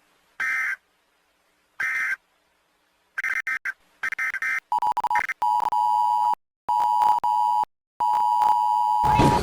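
Emergency Alert System SAME data bursts: three short, buzzy digital screeches about 1.4 s apart, the end-of-message signal. They are followed by a steady electronic tone near 1 kHz that breaks off briefly twice.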